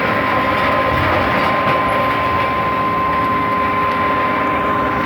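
Sierra logger baler's hydraulic power unit running steadily under a baling cycle, with a steady high whine over the machine noise.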